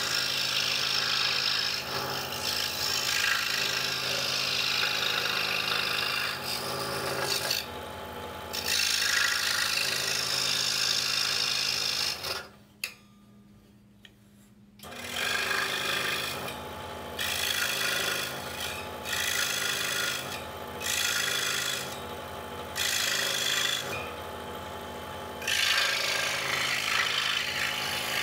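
DeWalt scroll saw running, its reciprocating blade cutting through thin wood puzzle stock, with the cutting hiss rising and falling as the piece is steered through small relief cuts. About halfway through the saw stops for about two seconds, then starts again.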